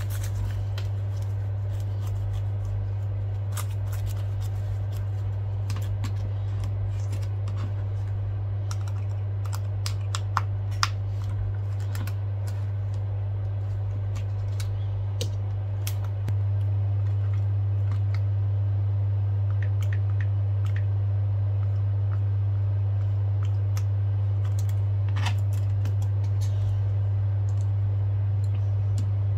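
Steady low hum, getting louder about halfway through, with scattered small clicks and taps from handling an iPad's LCD panel and wiping it with a cloth.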